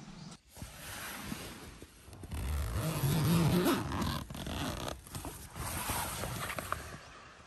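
A zipper being pulled in a series of rasping strokes over several seconds, with fabric rustling, loudest around the middle.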